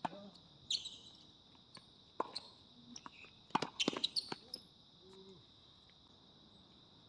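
Tennis ball being hit by rackets and bouncing on a hard court in a rally: a sharp pop right at the start, another about two seconds in, and a quick cluster of pops around four seconds in. A steady high-pitched insect drone runs underneath.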